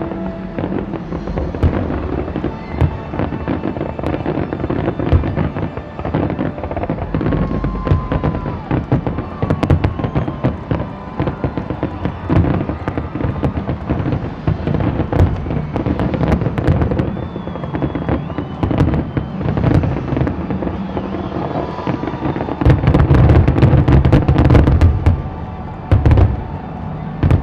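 Fireworks display: aerial shells bursting in a steady series of bangs and crackles, building to a dense, loud barrage about 23 seconds in.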